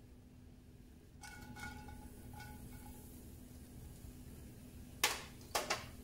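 Small metal kitchenware knocking: a stainless steel prep cup clinks against a cast iron pan about a second in and rings briefly, then two or three sharp clatters of dishes being handled near the end.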